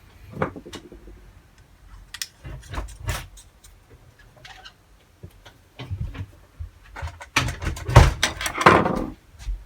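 Scattered clicks and light clinks of small metal parts being handled, then a louder stretch of clattering and knocking about seven seconds in, made by a person leaving the house.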